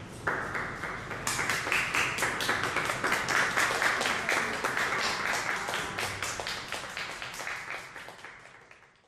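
Audience applauding, many hands clapping together. It breaks out suddenly, grows fuller after about a second, then fades away over the last few seconds.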